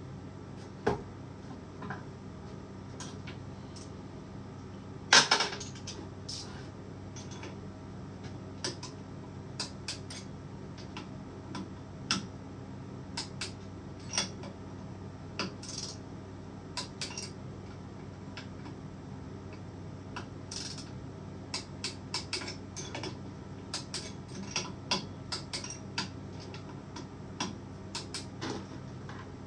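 Hand tools and metal parts clicking and clinking while a Stihl MS261C chainsaw is being assembled: scattered light clicks throughout, with one louder short burst about five seconds in. A steady low hum runs underneath.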